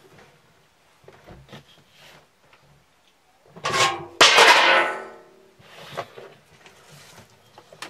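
Improvised tin intruder alarm going off: a metal tin drops off a door handle as the handle is pulled down and clangs onto another tin on the floor. The loud metallic clatter comes as two hits about half a second apart, the second louder, ringing for about a second, after a few faint clicks.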